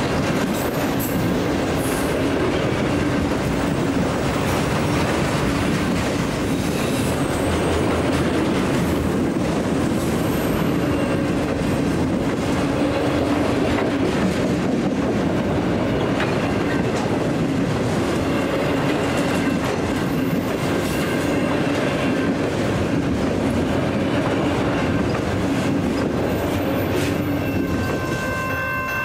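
Freight train cars rolling past at steady speed: a continuous rumble of steel wheels on rail, with clickety-clack over the rail joints and some wheel squeal.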